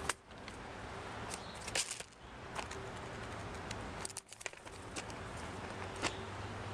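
A handful of short sharp clicks and taps over a steady outdoor background: a blue jay and a gray squirrel landing on and picking peanuts and seeds from a plastic feeder dish.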